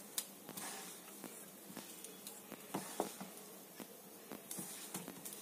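A hand kneading flour and yogurt into dough in a stainless-steel bowl: faint soft squishing with small, irregular clicks.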